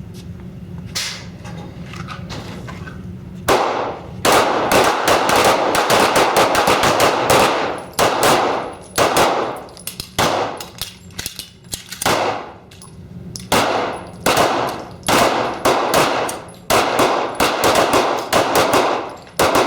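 Handgun fire from several shooters along a firing line: a couple of faint shots, then from about three and a half seconds in a dense run of overlapping shots, which breaks up into rapid separate shots.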